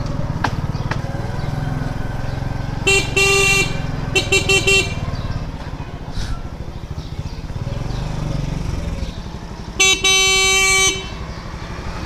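Honda CD-70 motorcycle's horn sounding three times: a short blast, a quick run of toots, then a longer blast of about a second. Underneath, the bike's small single-cylinder four-stroke engine runs at idle.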